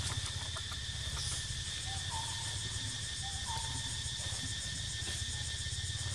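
Forest ambience: a steady high drone of insects, with a bird repeating a short two-note call, a low then a higher note, a few times. A low steady rumble lies underneath.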